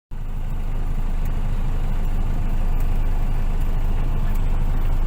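Steady low rumble of a moving motor vehicle, heard from on board while riding, with a few faint clicks; it starts abruptly just after the beginning.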